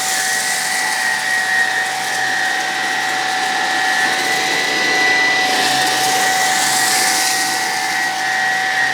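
Hoover Emerge Pet cordless stick vacuum running on low power as it is pushed over a rug strewn with kitty litter: a steady two-tone motor whine over the rush of airflow.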